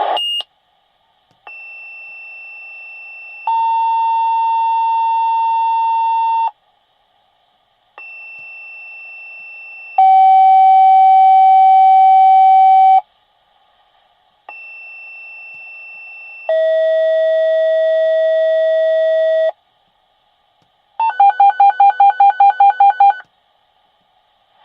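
Fire dispatch radio alert tones: three two-tone sequential pages, each a quieter high tone for about two seconds followed by a louder, lower tone for about three seconds, every pair set lower in pitch than the one before. Near the end comes a rapidly pulsing alert tone at about five pulses a second.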